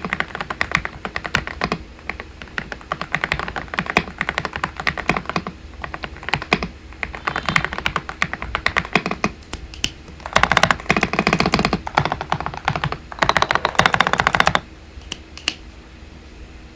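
Typing on a Dareu EK98 Pro mechanical keyboard with XDA-profile keycaps: a steady patter of keystrokes, breaking into two fast, dense runs of typing about ten and thirteen seconds in, then only a few scattered key presses near the end.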